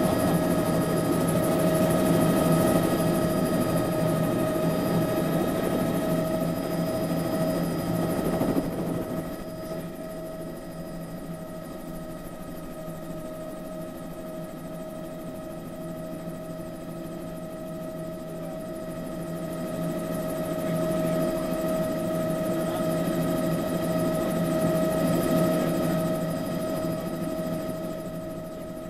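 Bell 206 JetRanger helicopter's Allison turboshaft turbine and rotors running, heard inside the cabin: a steady whine made of several held tones over a rushing noise. The level drops suddenly about eight seconds in, swells again later, then eases off near the end.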